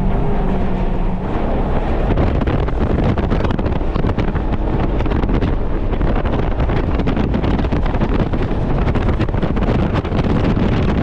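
Jet boat running fast on a river, with strong wind buffeting the microphone over the engine.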